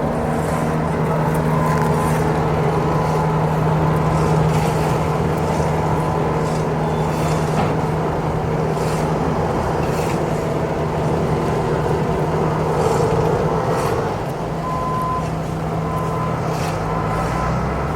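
Street traffic ambience: a motor vehicle engine running steadily with a low hum under a noise haze, with scattered light clicks and knocks. A few short beeps about a second apart come near the end.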